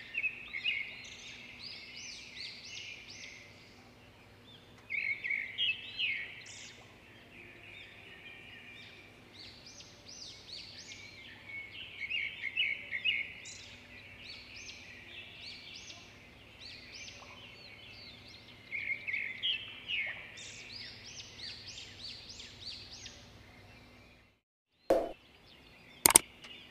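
Small birds chirping and twittering in repeated bursts of quick, high notes over a faint steady hum. About 24 seconds in this cuts off, and a few sharp clicks follow, the click sounds of an on-screen subscribe-button animation.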